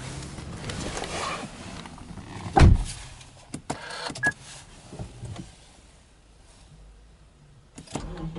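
Subaru Legacy Touring Wagon's driver's door shutting with a heavy thud about two and a half seconds in, followed by a few light clicks and a short beep, then a quiet spell. Near the end come more clicks as the ignition is switched on.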